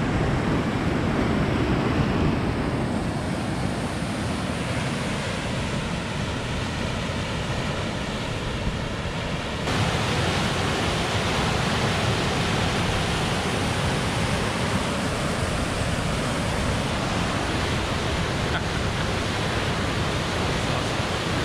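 Steady rush of whitewater from a river in high flood, getting a little louder about ten seconds in.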